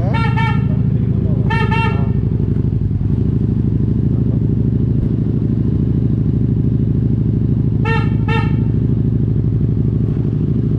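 Harley-Davidson Street 750's V-twin engine running steadily just after a service for a misfire. A horn gives quick double toots three times: at the start, at about two seconds, and at about eight seconds.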